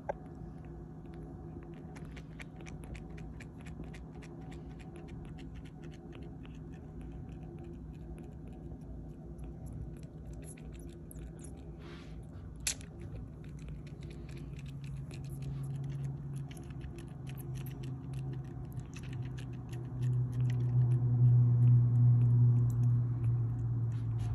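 Tabby kitten suckling milk from a small feeding bottle: a run of quick, small wet clicks and smacks from its mouth on the teat. A low steady rumble swells in the second half and is the loudest sound near the end.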